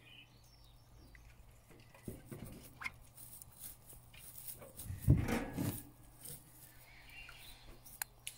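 Wet squelching and handling sounds of a raw sea cucumber's slippery body being pressed and pulled open by hand on a plastic cutting board, with a few sharp clicks and one louder squelch about five seconds in.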